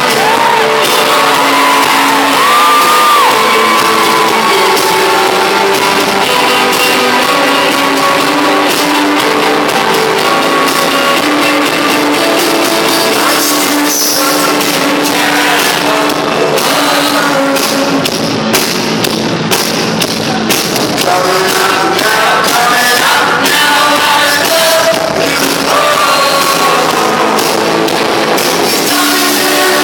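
Live rock band playing a song with a singer, and shouting voices over the music.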